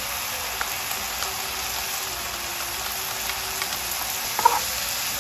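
Shrimp and vegetables sizzling in hot oil over high heat in a stir-fry pan, a steady hiss with a few light clicks. One short, louder sound comes about four and a half seconds in.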